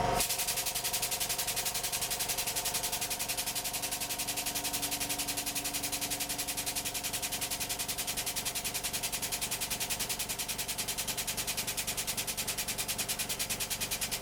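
Hydraulic press running: a steady machine sound with a fast, even pulsing and a steady hum.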